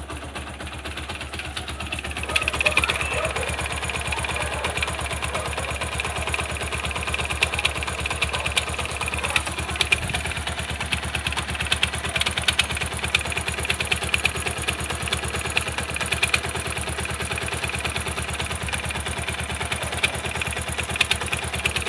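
Bajaj Pulsar motorcycle's single-cylinder engine idling steadily, with an even, rapid pulse. The owner hears an odd noise from the left, flywheel side of the engine, which he traces to the starter's one-way clutch.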